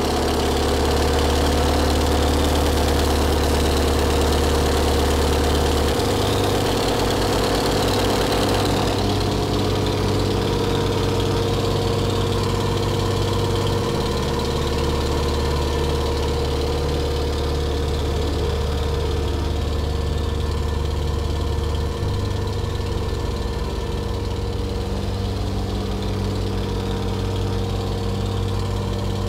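Antonov An-2's nine-cylinder, 1000 PS radial engine and four-blade propeller running steadily in flight, a continuous heavy drone. Its low pitch changes abruptly a few times.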